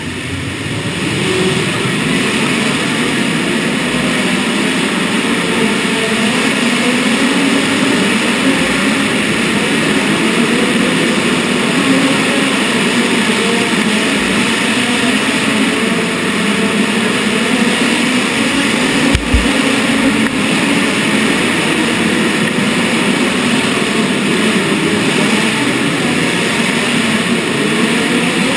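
Midget race car engine running in the pits at a steady fast idle, the revs rising and falling slightly. About 19 seconds in there is a single short low thump.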